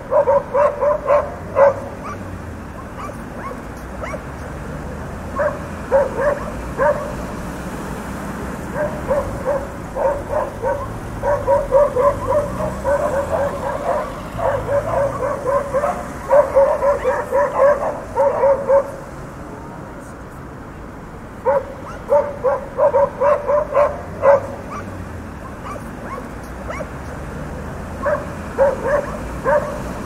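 Dogs barking in fast runs of short barks, several a second, broken by pauses of a few seconds, over a steady background hiss.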